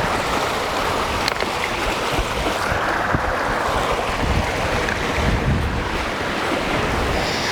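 Seawater rushing past the hull of a sailing yacht under way, with wind buffeting the microphone; the rush of water swells briefly about three seconds in. A faint click about a second in.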